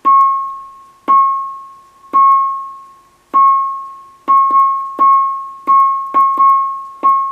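Electronic wood-block or claves sound from a one-transistor BC547 oscillator set on the brink of oscillation and triggered by a push button: about eleven sharp knocks, each ringing on one pitch and dying away within about a second. They come about one a second at first, then faster and some in quick pairs in the second half.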